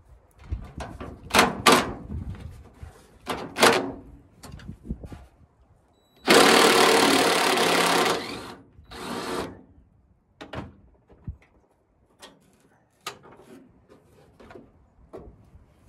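Cordless drill-driver backing out the trunk-lid hinge bolts: one steady run of about two seconds midway, then a shorter run, with a few short sharp sounds in the first four seconds and light clicks of metal near the end.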